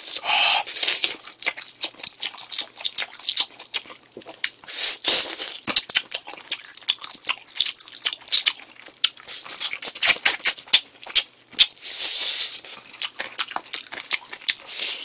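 Close-miked chewing of spicy sauced chicken: many quick wet clicks and smacks of lips and teeth, with breathy hisses from the mouth at the start, about five seconds in and again near twelve seconds.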